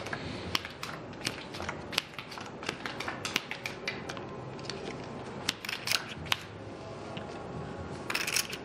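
Playing cards being dealt from a card shoe onto a felt blackjack table: a run of short, sharp clicks and slides as each card is drawn and laid down, with a brief rasping sound near the end.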